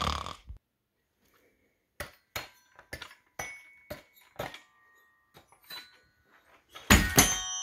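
A last snore fades out in the first half second. Then a glockenspiel's metal bars are struck one note at a time, about a dozen separate ringing notes. About seven seconds in, a loud flurry of several bars is struck together and left ringing.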